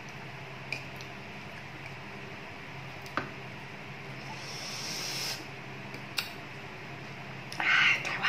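Eating sounds: a metal spoon clicks against a ceramic bowl a few times as spoonfuls of chilli rice are taken, over a steady low hum. There is a hiss about four to five seconds in, and a short, louder breathy burst near the end.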